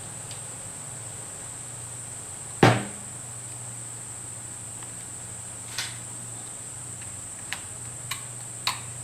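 Small metal clicks and knocks of model steam engine parts being handled while the slide valve rod is adjusted: one sharper knock about two and a half seconds in, then a few lighter clicks near the end. A steady low hum and a high-pitched whine run underneath.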